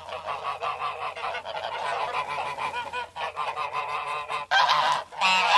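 A flock of geese honking, with many short calls overlapping, louder near the end.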